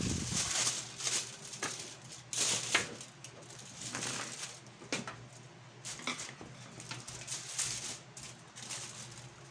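Aluminium foil crinkling and rustling in irregular bursts as it is spread and smoothed by hand over a metal baking tray, with a faint steady hum underneath.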